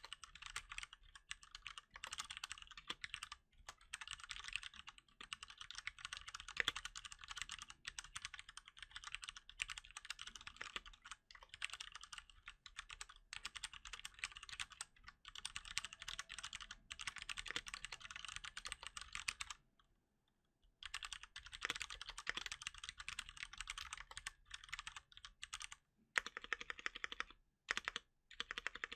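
Fast, continuous typing on a Cherry MX Board 3.0 S mechanical keyboard with Cherry MX Brown tactile switches, keys bare without a silicone cover. There is a pause of about a second two-thirds of the way through and a few short breaks near the end.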